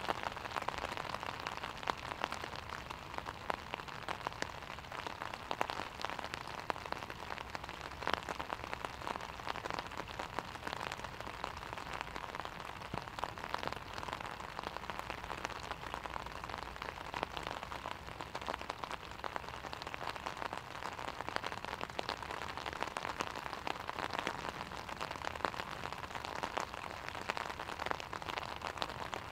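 Steady rain falling on a lake, with many close, sharp taps of raindrops hitting an umbrella sheltering the microphone.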